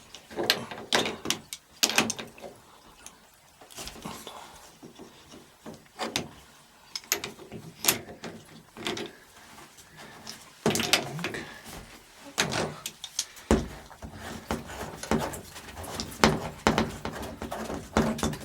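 Irregular metallic clicks and knocks of a wrench and fittings as the old bath mixer is unscrewed, with a denser run of louder knocks about two-thirds of the way through.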